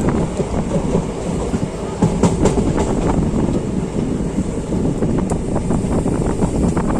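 Passenger train running on the track, with a steady rumble and repeated clacks from the wheels. It gets louder about two seconds in.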